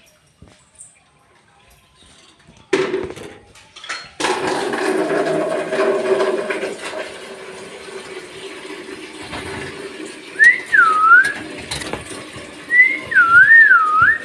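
A pet parrot whistling near the end: two wavy whistles that swoop up and down in pitch. They come after a quiet start and a sudden, louder noisy stretch of unclear source.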